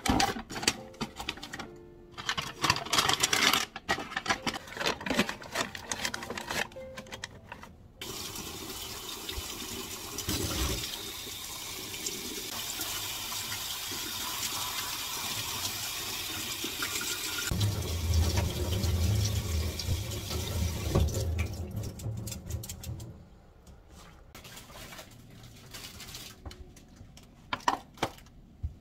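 Paper bags rustling and crinkling as they are pushed into a cardboard organizer box. About eight seconds in, a kitchen tap starts running into a stainless steel sink and over napa cabbage leaves being rinsed in a mesh colander, for about fifteen seconds. After the water stops, a few light knocks follow.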